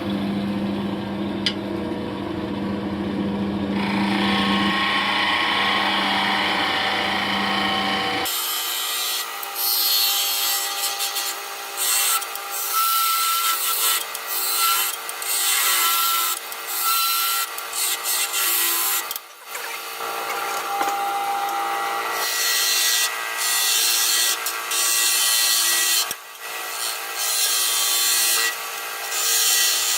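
Wood lathe running while a turning tool cuts the spinning wood, shaping the ends of a pipe handle. For the first several seconds it is mostly a steady motor hum; from about eight seconds in comes a loud hissing scrape of the cut, broken by short gaps between passes.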